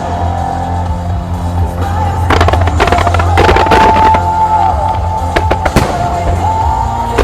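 Aerial firework shells bursting over loud rock music played through the show's speakers: a rapid cluster of bangs about two to three seconds in, then a few single bangs.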